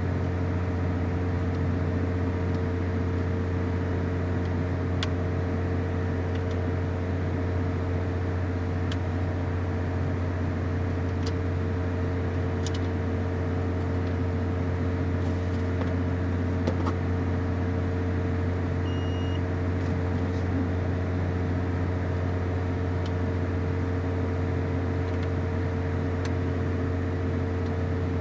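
Engine running at a steady idle: a constant low hum that holds unchanged throughout, with a few faint clicks.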